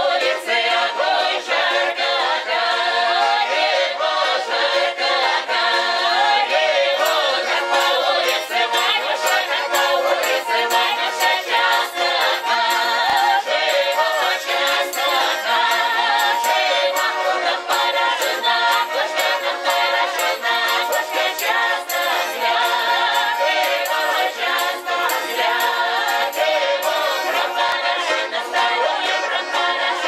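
Russian folk ensemble singing in chorus, men's and women's voices together, accompanied by a button accordion, with a tambourine's jingles keeping a steady beat.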